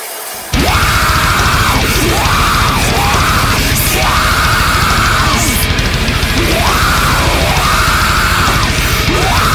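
Death metal music with fast, dense drumming and distorted guitar, kicking in loudly about half a second in.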